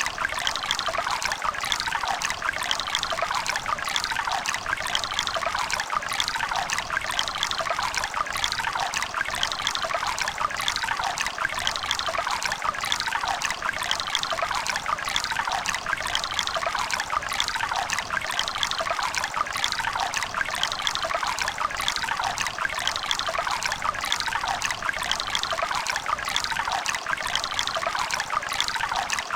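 Running river: a steady rush of flowing water, thick with small splashes and gurgles.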